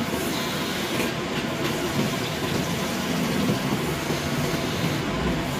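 A machine running steadily, a continuous mechanical noise with no clear rhythm or pitch change.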